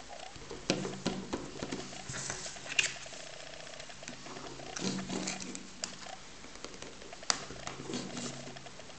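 Fingertips rubbing, tapping and scraping over a phone's screen protector while peeling its plastic backing film: irregular scratchy rustles and small sharp clicks.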